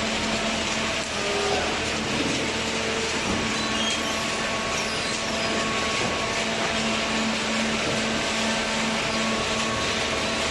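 Semi-automatic hydraulic carton baler running: steady machine noise from its motor and hydraulic pump, with a constant hum.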